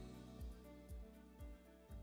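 Quiet outro background music with a steady beat, about two beats a second, slowly fading.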